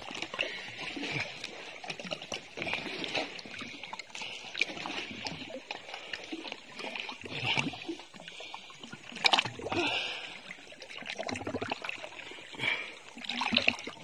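Sea water splashing and sloshing irregularly as a person moves through it, with a few louder splashes in the middle and near the end.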